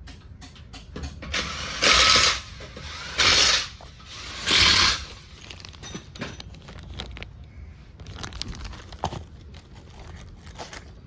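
A wrench tightening the crankshaft centre bolt on the Ertiga engine: three loud bursts of about half a second each, then lighter metallic clicks and taps from the tool work.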